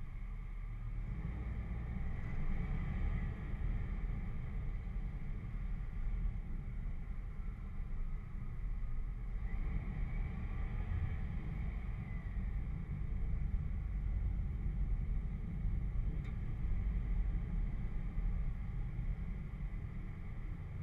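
Off-road 4x4 driving slowly over gravel and dirt, a steady low engine and tyre rumble picked up by a camera mounted on the vehicle's front. A faint whine rises and falls twice.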